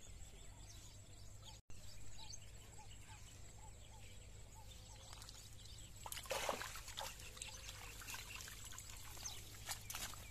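Water trickling and dripping off a cast net as it is hauled in from a pond, with a louder splash of water pouring off the mesh about six seconds in as the net comes out of the water.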